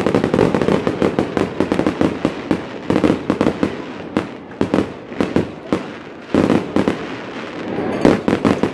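Fireworks going off in rapid volleys: dense strings of sharp bangs and crackling, with short lulls between volleys and a last volley near the end.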